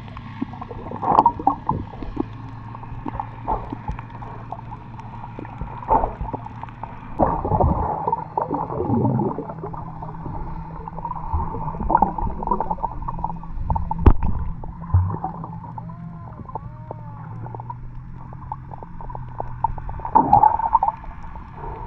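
Muffled underwater sound from a camera held below the surface while snorkelling: irregular gurgles and bubbling swells with knocks, over a steady low hum.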